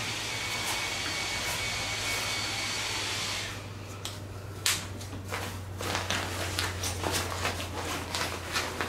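Air hissing steadily out of an inflatable sleeping pad's open valve, with a faint whistle, as the pad is rolled up; the hiss stops about three and a half seconds in. After that the pad's nylon fabric rustles and crackles in short sharp clicks as it is rolled and snapped together.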